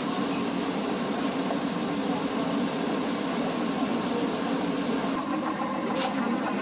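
A machine running steadily, a low hum under a constant hiss, with a brief click near the end.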